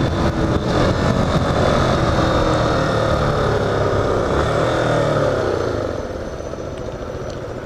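Yamaha Lander XTZ 250 single-cylinder motorcycle engine running hard at speed, its pitch slowly falling as it eases off, then quieter from about six seconds in.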